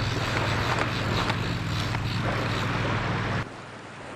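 Strong wind buffeting the microphone over lake waves: a steady, rumbling rush. It drops suddenly to a quieter wash of waves and wind about three and a half seconds in.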